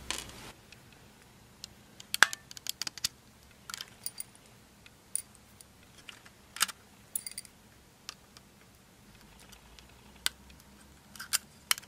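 Light, irregular clicks and taps of small plastic and metal parts being handled as a pocket cassette Walkman is taken apart.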